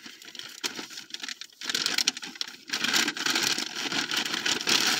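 Plastic packaging crinkling and rustling as a package is handled and torn open, fainter at first and fuller from about two seconds in.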